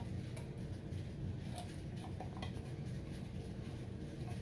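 Condensed cream of chicken soup sliding slowly out of a tin can onto a bowl of dressing mix, with a few faint soft clicks over a steady low background hum.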